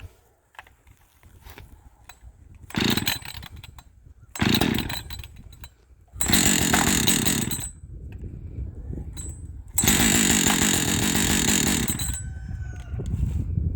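Husqvarna 555 two-stroke chainsaw being pull-started, catching and running in four short bursts, each dying out again; the last runs about two seconds and then winds down with falling pitch. The chain brake is engaged, which the owner blames for the saw not starting.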